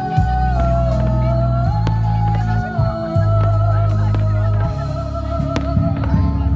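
Background music: a slow melody line held over long, sustained bass notes that change every second or two.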